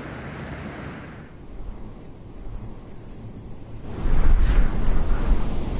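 Insect chirring, a steady high pulsing trill, begins about a second in. About four seconds in, a loud gust of wind rumbles across the grass and microphone.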